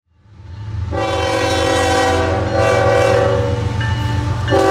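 Diesel locomotive horn sounding a chord of several notes over the low rumble of the engine, fading in over the first second and holding, with the notes shifting slightly about halfway through.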